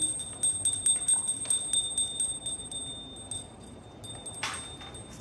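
Small ritual hand bell rung rapidly: a high, steady ring with the quick strikes of its clapper. The ringing fades about three seconds in and comes back faintly near the end.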